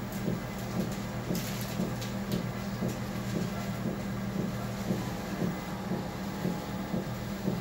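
NordicTrack Commercial 2450 treadmill running at 7 mph: a steady motor and belt hum, with rhythmic thuds of running footfalls about two to three a second on the deck. A few brief sharp clicks come between one and two and a half seconds in.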